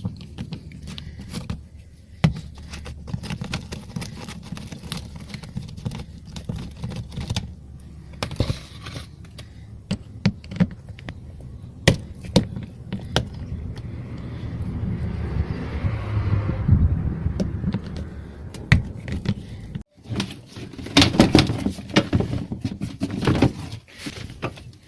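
Hand tools and fasteners clicking, knocking and scraping on car engine parts, over a steady low hum. A rushing noise rises for a few seconds near the middle.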